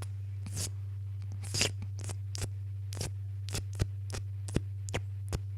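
Added licking sound effects for a cat's tongue: a string of about ten short smacking clicks, roughly two a second, over a steady low hum.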